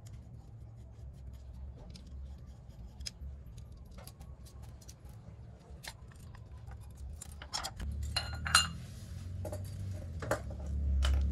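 Screwdriver and small metal carburetor parts clicking and clinking as a carburetor is worked on to change its main jet. A louder run of clicks and scrapes comes about eight seconds in.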